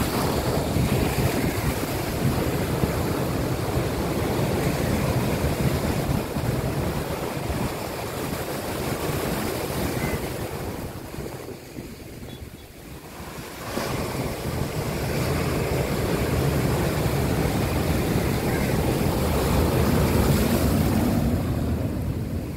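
Rough sea surf breaking and washing over shore boulders: a continuous rush of foaming water, with wind buffeting the microphone. The rush eases for a couple of seconds about halfway through, then builds back up.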